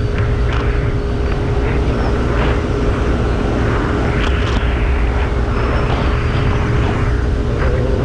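Wind rushing and buffeting over an action camera's built-in microphone at about 90 km/h, over the steady drone of a Yamaha NMAX scooter's engine and drivetrain at speed.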